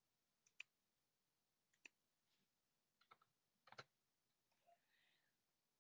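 Near silence broken by a handful of faint, irregularly spaced computer mouse clicks, the loudest just under four seconds in.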